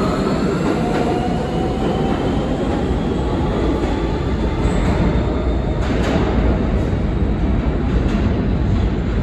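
R160B subway train with Siemens propulsion accelerating out of the station: a slowly rising motor whine over steady wheel and track noise, with a few sharp clanks about six seconds in.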